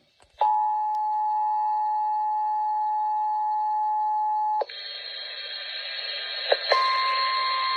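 Emergency alert tones: after a brief silence, the Emergency Alert System two-tone attention signal, a steady dual tone, sounds for about four seconds and cuts off. A hiss follows, and over it, about a second before the end, a single steady higher tone starts: the weather radio warning alarm tone that comes before a warning.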